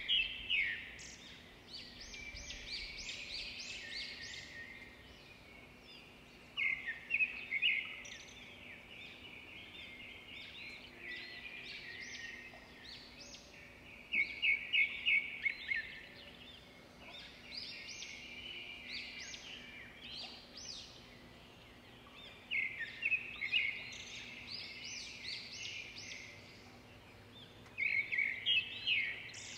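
A songbird singing: bursts of rapid, high chirping notes that come back about every seven seconds, with quieter twittering in between.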